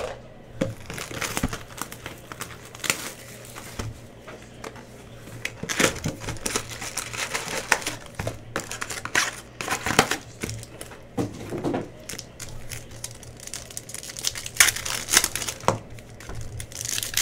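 Plastic wrapping of a hobby box of basketball trading cards and its packs, crinkling and being torn open by hand in a string of irregular crackles and rips.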